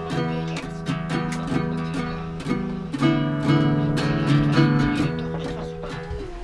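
Nylon-string classical guitar strummed in a steady rhythm of chords, changing to a fuller, louder chord about three seconds in.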